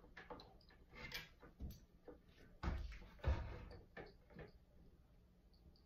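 Scattered light clicks and knocks of handling as the power cord is fed under the wooden drum carder and connected to its motor, with two heavier thumps about two and a half and three seconds in.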